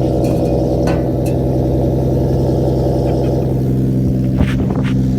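Toyota 1JZ-GTE turbocharged inline-six idling steadily through a Ford Power Stroke diesel truck muffler pushed onto its exhaust pipe. A few light clicks sound about a second in and again around four and a half seconds in.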